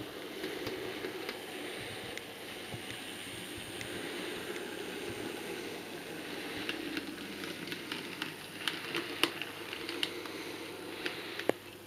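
Model diesel locomotive running along the layout track: a steady low whirr from its motor and wheels, with a run of sharp clicks in the second half as it rolls over rail joints and pointwork.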